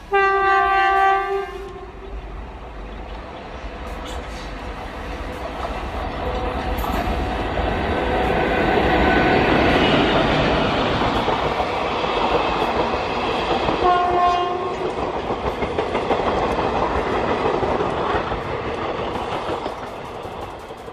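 Indian Railways train horn blasting for under two seconds, then the noise of a train passing at speed. The noise builds to its loudest about halfway through and fades away toward the end. A second, shorter horn blast sounds about 14 seconds in.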